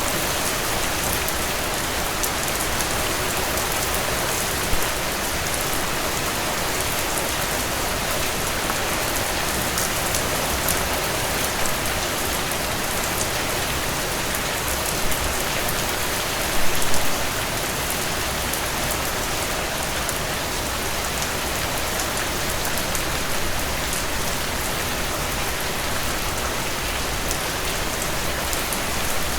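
Steady heavy rain falling and pattering on surfaces, dense and even, with a brief louder spatter of drops about two-thirds of the way through.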